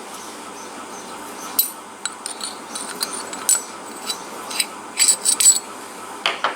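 Light metallic clicks and clinks as the parts of a pneumatic quick exhaust valve are handled, a dozen or so irregular taps that cluster about five seconds in.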